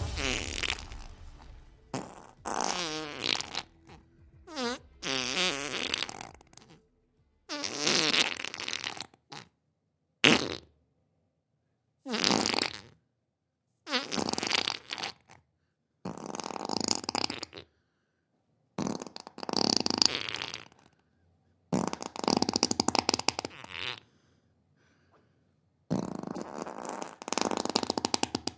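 A run of about a dozen wet fart sound effects, each a second or two long with short silences between. A few near the start have a wavering, musical pitch, and one about ten seconds in is short and sharp.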